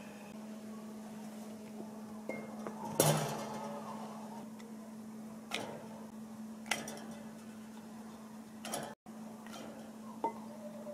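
Kitchen utensils and dishes knocking and clinking in a handful of separate strikes, the loudest about three seconds in, over a steady low hum.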